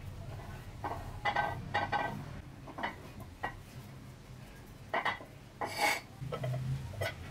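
A small brush scrubbing the wet, grimy metal housing parts of an old electric chainsaw, in short irregular strokes with light clinks of metal against the tile.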